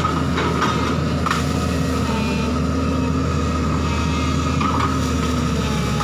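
Diesel engine of a JCB crawler excavator running steadily under load, with a steady whine over the engine hum. A few short cracks sound in the first second and a half and again about four and a half seconds in.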